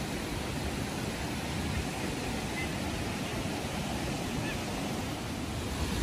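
Steady rush of the Wata-ga-taki waterfall: an even roar of falling water with a deep rumble underneath.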